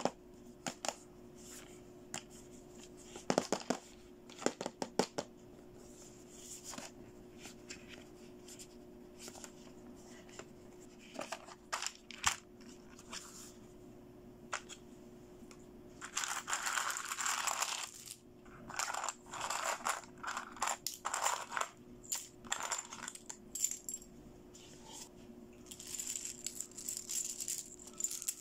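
Small hard plastic toy pieces, tiaras, hair bands and bead necklaces, clicking and clattering against each other and a plastic toy case as they are handled and lifted out. A few separate sharp clicks come in the first half, then bursts of denser clattering in the second half.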